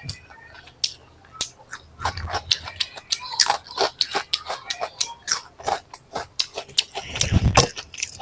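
A person chewing food close to the microphone: many quick, irregular wet mouth clicks and smacks, with a low thud about seven seconds in.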